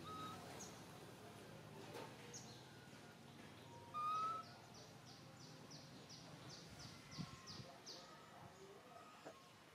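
Faint birds calling over a low background hum of outdoor air. About four seconds in comes a short, clear whistled note, the loudest sound, followed by a quick run of high, falling notes, about three a second, for several seconds.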